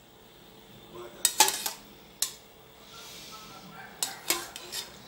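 Metal spoon clinking against a metal bowl and a baking dish as melted margarine is scooped out and spread. There are several sharp clinks: two about a second in, one a moment later, and three more close together near the end.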